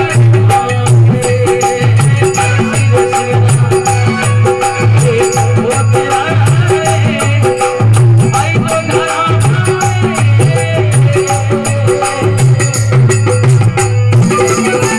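Instrumental passage of a devotional bhajan: a melody line over a steady hand-drum beat, with rattling, jingling percussion.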